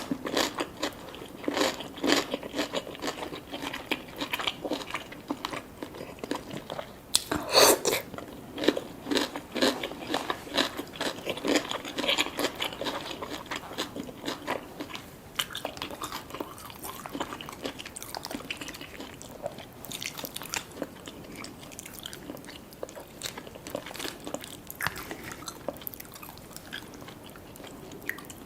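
A person eating seafood boil: steady biting and chewing with crunchy crackles, and the loudest run of bites about seven to eight seconds in.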